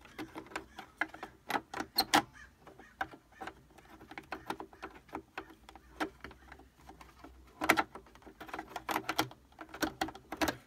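Irregular clicks and rattles as a stiff, tight-fitting part is wiggled loose from a Brother Project Runway sewing machine, with bunches of sharp clicks about two seconds in and again near the end.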